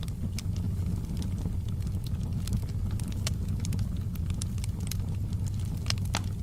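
Wood fire burning in a fireplace: a steady low rumble from the flames with sharp crackles and pops scattered a few times a second, a louder pop near the end.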